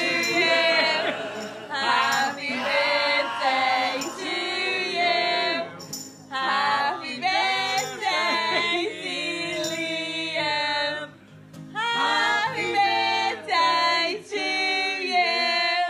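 A song playing: a voice singing a melody over backing music.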